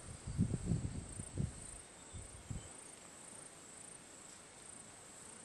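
Faint, high-pitched insect chirring, pulsing steadily about twice a second. Irregular low thumps and rumble over the first two and a half seconds.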